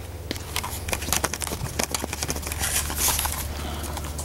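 Handling noise from a handheld camera being moved about: irregular clicks and rustles, with a brief rush of hiss partway through and a steady low hum underneath.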